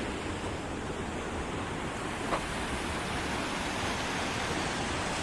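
Steady rush of water pouring over the Black Eagle hydroelectric dam on the Missouri River.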